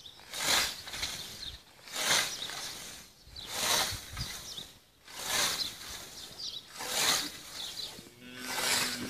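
Hand scythe mowing tall grass: a steady rhythm of swishing cutting strokes, about one every second and a half, six in all.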